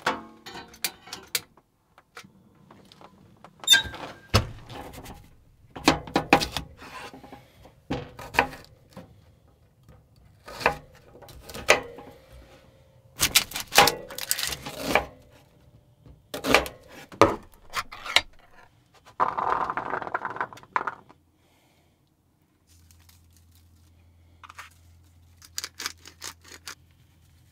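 Items being handled and set down in a small camper kitchen: a run of clicks, knocks, clatters and scrapes, then about two seconds of rushing noise around twenty seconds in. A low steady hum starts near the end, under a few lighter clicks.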